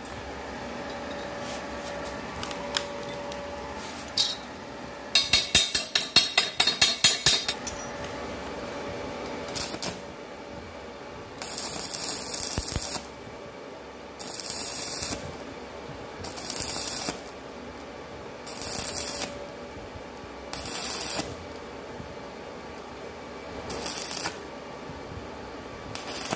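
Stick-welding arc crackling and hissing at a square-tubing joint in short runs of about a second each, six times in the second half, with pauses between. Earlier comes a quick run of sharp clicks, about four a second.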